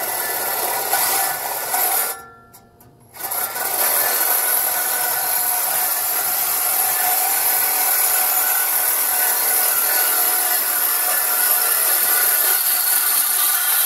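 Ryobi cordless reciprocating saw cutting through the steel exhaust pipe ahead of the stock muffler, to remove the old exhaust. The saw runs loud and steady, stops for about a second around two seconds in, then cuts on steadily.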